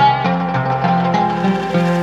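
Background music: a melody of plucked string notes.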